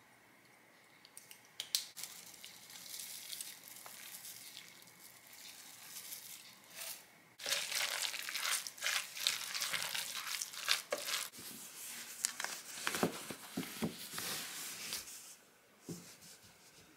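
A thick, wet mash of sweet potato, spinach and oats being stirred with a wooden spoon in a stainless steel saucepan. It starts as a quieter crackle and grows into loud, dense squelching and scraping about seven seconds in, with a few knocks of the spoon against the pan, and stops suddenly about fifteen seconds in.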